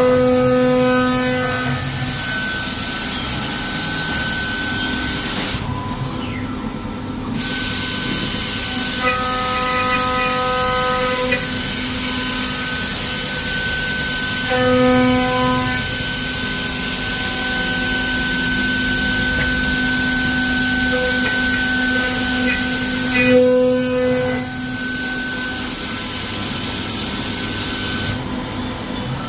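CNC router running: a steady high whine from the spindle over a constant cutting hiss. The sound breaks off briefly twice.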